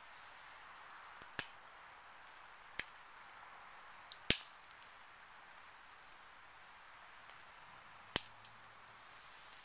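Dead conifer twigs snapping as they are broken off by hand: four sharp, single snaps spread over several seconds, the third the loudest. Behind them is a faint, steady hiss of dripping, rain-soaked woods.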